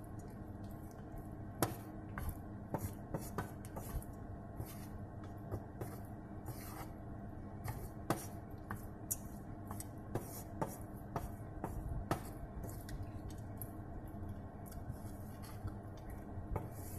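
Spatula scraping and tapping against a dark nonstick pan as cooked rice is tossed and mixed with its tempering. The clicks come irregularly, several a second, over a steady low hum.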